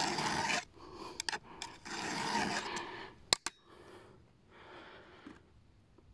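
Round chainsaw file stroking across a chainsaw chain's cutter tooth to take the burr off its outside edge and finish it: several rasping strokes, the longest about two seconds in, a sharp click near the middle, then a few fainter strokes.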